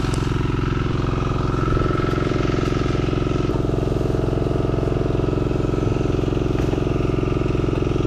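A small engine running steadily at an even speed, with a constant hum.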